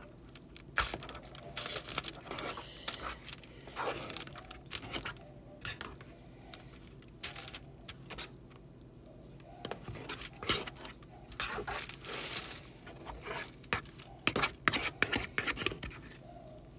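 A metal fork scraping and clicking in a takeaway tray as microwaved poutine fries are stirred, with some crinkling of the plastic film over the tray. The sounds come in irregular flurries, busiest near the start and again about two-thirds of the way through.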